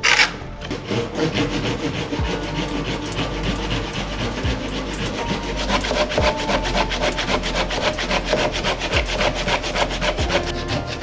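A hand saw cutting into wood with quick, steady back-and-forth strokes.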